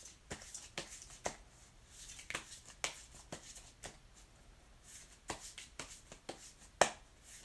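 A deck of tarot cards being shuffled and handled by hand: irregular soft flicks, swishes and light snaps of the cards.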